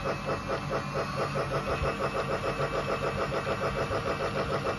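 Battery-powered Mickey Mouse toy steam locomotive running under remote control, freshly repaired: a steady motor whir with a fast, even chugging pulse about seven times a second.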